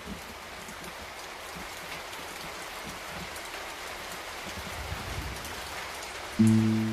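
Steady rain falling, heard as an even hiss. Near the end, music comes in with sustained chords.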